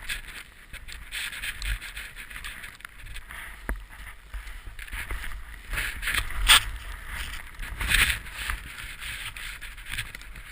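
Snowboard sliding through fresh powder snow: a swishing hiss that swells and fades with each turn, and a sharp knock about six and a half seconds in.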